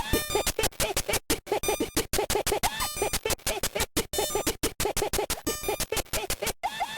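A wheezing laugh chopped into a fast rhythmic loop, with stuttering cuts and record-scratch effects. Near the end the loop switches to a higher, squeakier repeated pattern.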